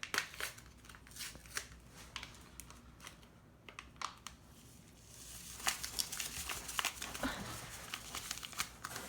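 Seasoning packet being crinkled and torn open: scattered crackles and clicks at first, then a longer stretch of rustling in the second half as the Italian dressing seasoning is added.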